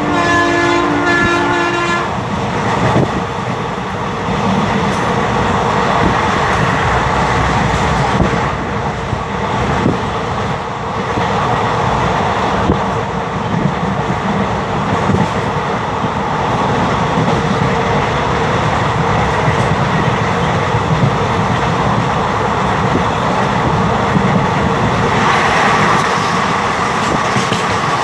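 Express passenger train running at high speed, heard from aboard a coach: a steady rolling noise of wheels on rail. The WAP-4 electric locomotive's horn is sounding at the start and stops about two seconds in.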